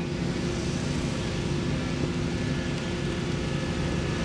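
Steady hum with several fixed tones over an even rush, from a propane burner and a small fan running beside a pan of hot oil.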